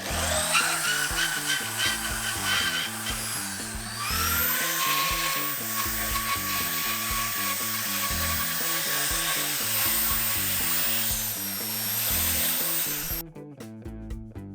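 Electric drill spinning a carbide burr bit that grinds into Corian solid-surface material, a steady grinding whine whose pitch dips and rises as the bit bites. It stops abruptly near the end, over background music.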